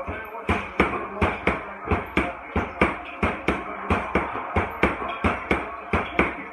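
Boxing-gloved fists striking an Everlast heavy bag in a rapid, even flurry of thuds, about four punches a second.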